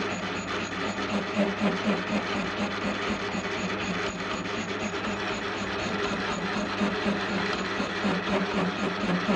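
Metal lathe taking a facing cut across a 4140 chromoly steel blank with a sharp carbide insert: the machine runs steadily under the cutting noise, with a fast regular pulsing throughout.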